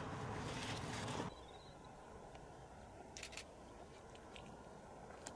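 Faint outdoor ambience of a field: a low even hiss that drops quieter about a second in, with a few faint clicks.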